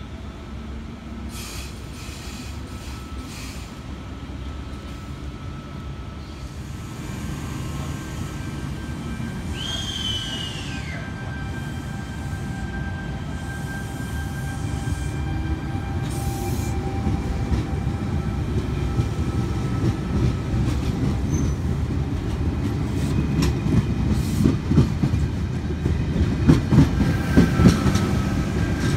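V-set double-deck intercity electric train arriving along a platform and slowing to a stop: a low rumble that grows louder as it draws alongside, with thin steady squeals. A short squeal falls in pitch about ten seconds in, and wheels clatter over rail joints near the end.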